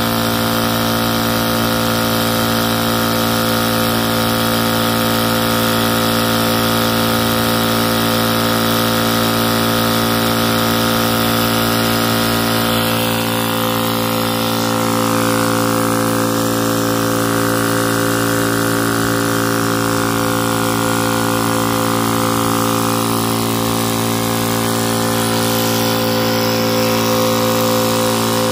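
Tuxing high-pressure PCP air compressor running steadily under load, a continuous motor-and-piston hum, as it charges from an empty gauge toward 3,000 psi.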